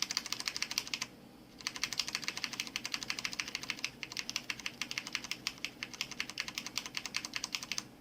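A computer keyboard's Delete key mashed rapidly and repeatedly, a fast even run of key clicks with one brief pause about a second in. This is the key being hammered during boot to get into the BIOS setup.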